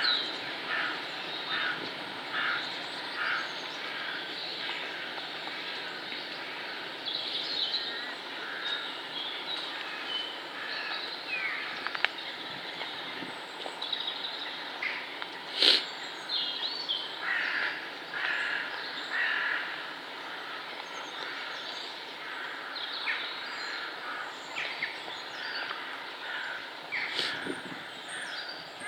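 Woodland birds singing and calling, many short chirps and trills overlapping, over a steady background hiss. A single sharp click sounds about halfway through.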